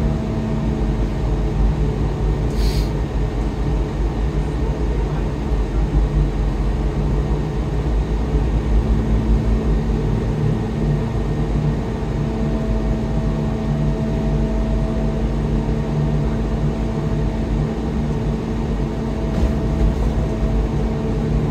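Steady drone of a GO Transit bus cruising at highway speed, heard from inside the bus: engine hum with a low rumble of tyres on the road.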